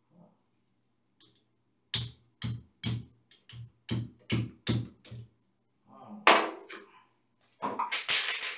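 Claw hammer tapping a hand tool set in a hole through a tiled wall, chipping at hard backing behind the tile: about nine sharp taps, roughly three a second. Then a louder knock, and near the end a metallic clatter with a ring, like tools being put down on the tile ledge.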